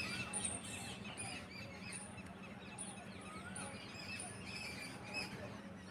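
Birds chirping with many short, repeated calls, over a steady low hum.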